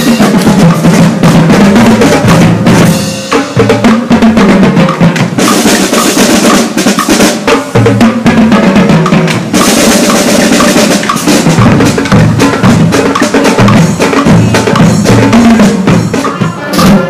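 A school marching band's drumline playing: snare and bass drums beating a fast, steady rhythm, loud throughout.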